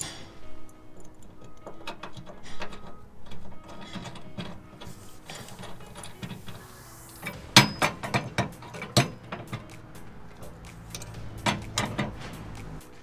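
Hand ratchet wrench clicking and steel bolt hardware clinking as a bolt is fitted and tightened on a trailer-frame stabilizer bracket, the clicks coming in clusters a little past halfway and again near the end. Background music plays underneath.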